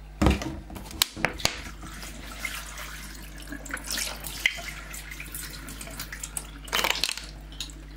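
Thin ribbed plastic water bottles being handled and squeezed, crinkling and crackling, with several sharp clicks near the start and a denser burst of crackling near the end.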